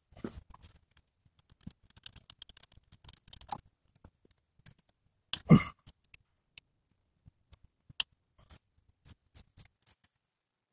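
Hand work on an engine's water pump housing: scattered small clicks, scrapes and light metal knocks, with one louder knock about five and a half seconds in and a few sharp ticks near the end.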